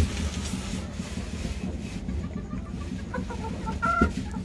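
Chickens clucking a few short times near the end, over a steady low hum, with a short thump at the very start.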